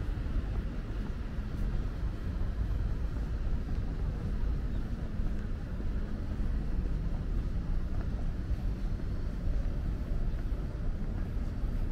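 Steady low rumble of city traffic, an even drone with no single vehicle standing out.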